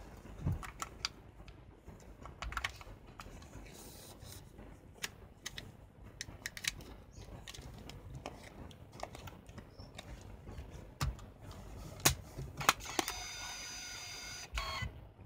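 Small clicks, taps and glove rustle as a 35 mm film cassette and its leader are fitted into a Canon EOS-1's film chamber, with a sharp snap about 12 s in as the back door closes. About a second later the camera's built-in motor whirs for about a second and a half, auto-loading the film, and stops abruptly.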